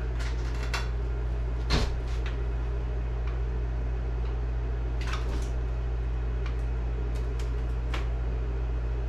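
A steady low hum with a few sharp clicks and knocks, the loudest about two seconds in, as a pickup truck's body is let down onto its frame mounts with a floor jack.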